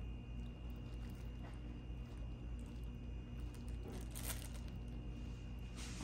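Plastic oven bag crinkling in a few short rustles, the loudest pair about four seconds in, as a knife and toothpick move the ham slices, over a steady low hum.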